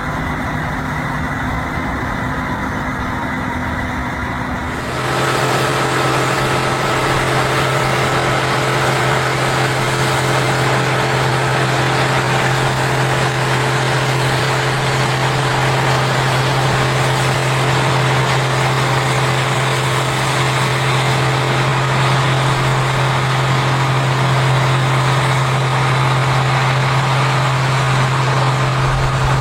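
Combine harvester running while harvesting corn, a steady machine drone. About five seconds in, the sound changes suddenly to a louder, steadier drone with a strong low hum.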